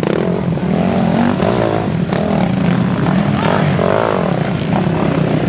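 Several dirt bike engines revving as the bikes pass one after another, their pitches rising and falling and overlapping.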